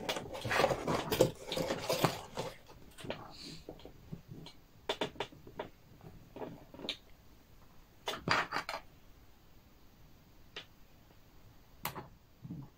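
Plastic HEXBUG Nano track pieces and connectors being handled and snapped together on a table: a flurry of clicks and clatter in the first couple of seconds, then single clicks every second or two.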